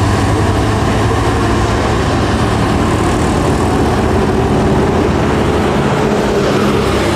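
Steady road traffic: intercity bus engines running as the buses come up the road, with motorcycles passing close by.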